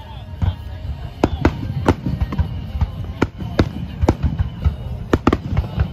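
Fireworks display: aerial shells bursting in quick, irregular succession, a dozen or more sharp bangs over a continuous low rumble of the barrage.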